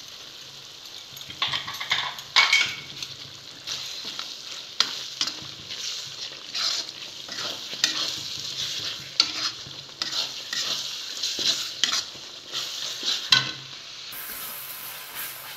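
Spice masala sizzling in hot oil in a pan while a spatula stirs and scrapes it around, with irregular scraping strokes over the steady frying hiss. The masala is being fried with freshly added garam masala and chicken masala powder.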